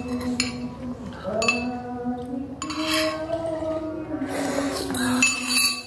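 Metal forks and spoons clinking against ceramic noodle bowls several times, each strike leaving a short ring. A noisy slurp of broth follows about four seconds in.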